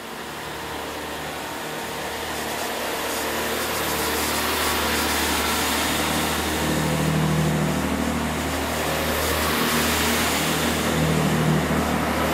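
Diesel multiple unit train pulling through the platform under engine power, its diesel engines drumming steadily with wheel and rail noise. The sound grows louder over the first few seconds, then holds steady.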